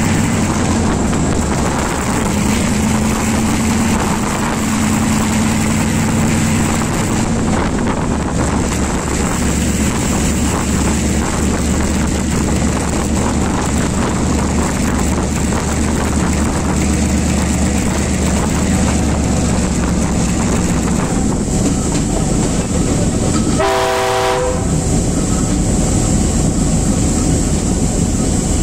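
Class M2c diesel-electric locomotive running along the line, a steady engine drone over the rattle of wheels on the rails. Almost a second long, one short horn blast sounds about 24 seconds in.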